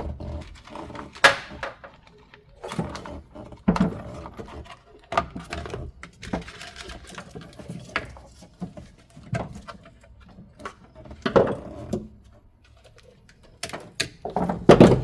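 Irregular clicks, knocks and rustling of a car wiring harness and plastic interior trim being handled and pulled free inside a car cabin.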